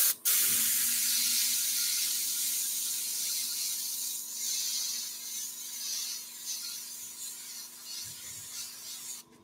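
Airbrush spraying wood dye through a stencil: a steady hiss of air that slowly weakens and cuts off just before the end.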